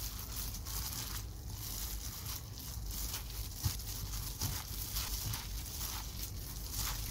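Hand in a thin plastic glove mixing wet, sauced buckwheat noodles and young radish kimchi in a stainless steel bowl. The glove crinkles and the noodles squish in repeated strokes about twice a second, with one sharper knock about three and a half seconds in.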